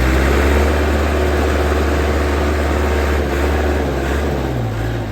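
Cummins 855 Big Cam straight-six diesel in a 1973 Kenworth W900A running under load as the truck pulls in fourth gear. It makes a deep, steady engine note whose pitch shifts briefly about three seconds in and again near four seconds.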